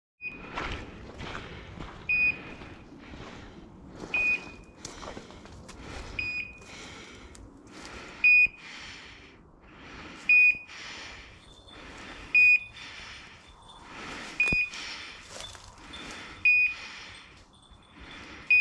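A hunting dog's beeper collar sounding one short high beep about every two seconds, the steady signal given while the pointing dog holds still on point. Underneath it are footsteps crunching and rustling through dry brush and dead leaves.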